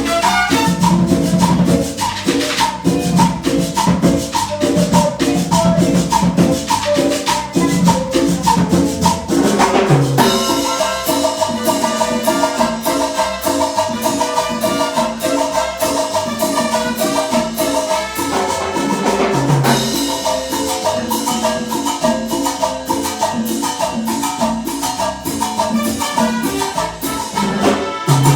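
Salsa band playing live during a sound check, over a busy, steady percussion rhythm. About a third of the way through, a line of long held notes comes in for several seconds.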